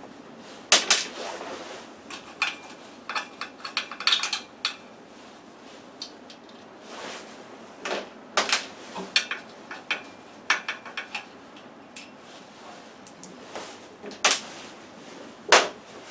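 Metal hand tools clinking and clicking as a wrench and socket work the nuts and lock washers off the side cover of a Kohler K440 snowmobile engine: irregular sharp clicks, with a quick run of them about three to four and a half seconds in.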